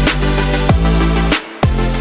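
Loud electronic intro music with a heavy bass and a steady beat, cutting out briefly about one and a half seconds in.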